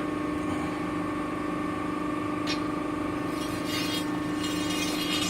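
Hydraulic guillotine shear's pump unit running with a steady hum, with a single click about two and a half seconds in and a hissing noise building in the last couple of seconds.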